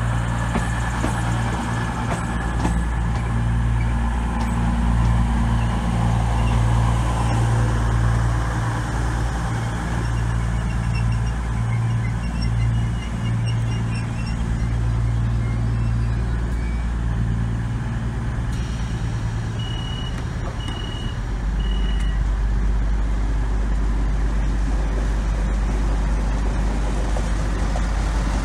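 CrossCountry Voyager diesel multiple unit pulling out of the platform, its underfloor diesel engines running with a steady low drone. A Transport for Wales diesel multiple unit then takes over the low engine sound as it rolls past. Three short high electronic beeps sound about two-thirds of the way in.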